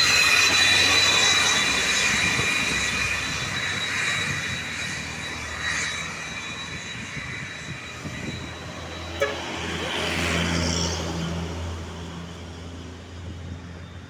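Heavy road traffic passing: a large vehicle's engine hum with a steady high whine that fades away over the first several seconds. A sharp click comes about nine seconds in, and another vehicle's engine swells past around ten seconds.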